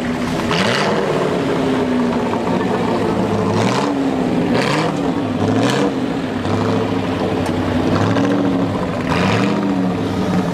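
Tatra 805 truck's engine working down a steep dirt slope, its pitch rising and falling again and again as the throttle is opened and closed. Several short hissing rushes of noise come over it.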